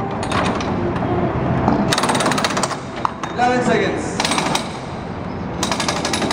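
Pneumatic wheel guns rattling on a Formula One car's wheel nuts during a pit-stop wheel change, in four short bursts of rapid hammering clicks.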